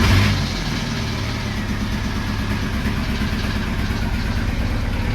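Volkswagen TDI diesel engine just after starting: the revs settle within the first half second into a steady idle with a fast, dense clatter. The owner takes the noise for internal engine problems.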